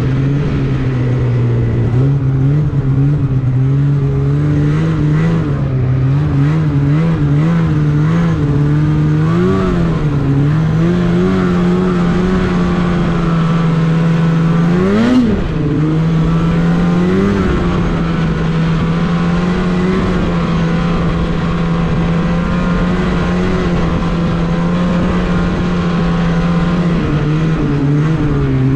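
Snowmobile engine running steadily at trail speed, around 4,000 to 5,000 rpm, its pitch wavering with small throttle changes. About halfway through it revs up sharply and drops back.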